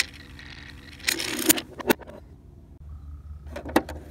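Hard plastic clicking and clattering from a toy garage playset's doors and a toy car being handled. It comes in two short bursts, about a second in and again near the end.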